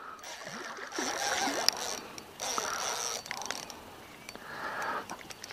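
Spinning reel whirring and clicking in three short spells as a hooked carp is played on the rod.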